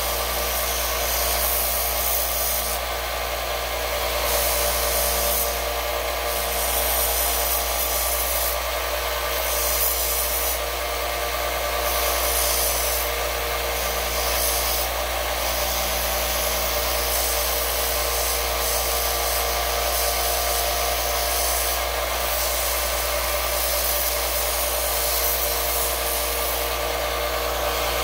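Small bench belt sander running steadily with a constant motor hum. A wooden handle is pressed against the belt in repeated passes, each pass adding a grinding hiss that comes and goes every second or two.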